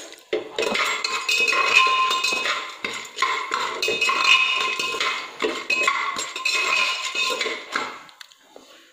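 A metal slotted spoon stirs and scrapes unpopped popcorn kernels around the bottom of an aluminium pressure cooker, the kernels rattling and the pot giving a metallic ring. This is the stage where the kernels are coated in ghee and salt before popping. The stirring dies away near the end.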